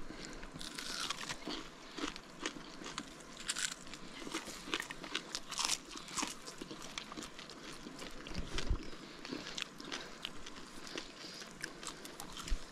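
A crisp tortilla, fried golden in the fat left from frying fish, being bitten and chewed close to the microphone: many irregular crunches.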